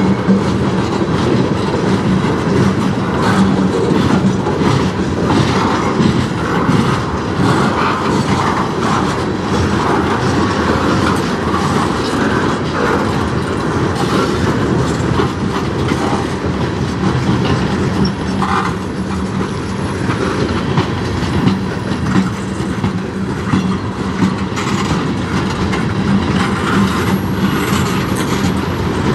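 Freight train boxcars and gondolas rolling past: a steady rumble and clatter of steel wheels on the rails, with scattered clicks. A faint high squeal shows up twice in the second half.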